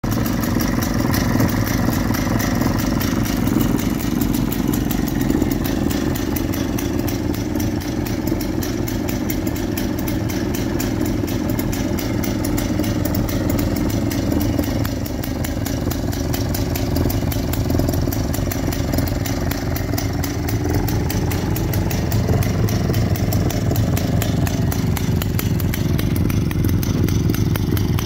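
Stihl 090G two-man chainsaw's large single-cylinder two-stroke engine idling steadily, a rapid even beat of firing strokes.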